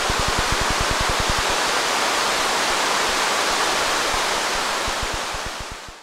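Steady rush of a waterfall, with the fast low beat of background music under it that drops away after about a second and a half. Everything fades out at the very end.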